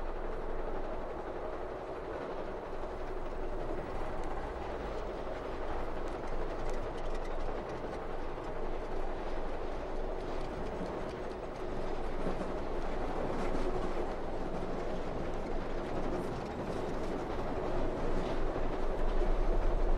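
Steady rumble of a moving passenger train heard from inside the carriage, with a few faint clicks now and then.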